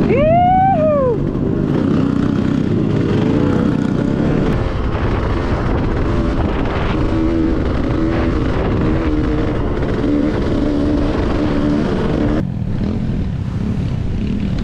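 Dirt bike engine running on a trail ride, with heavy wind rumble on the microphone. About a second in, the engine revs quickly up and back down, then settles into a steadier, wavering drone; near the end the sound becomes a little duller.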